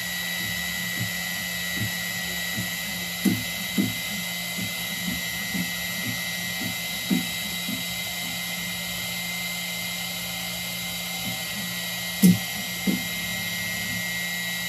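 Desktop laser engraver switched on, with a steady high-pitched whine over a low hum. Short low buzzes come at uneven intervals, the two loudest about twelve seconds in, as the machine responds to commands from its touchscreen controller.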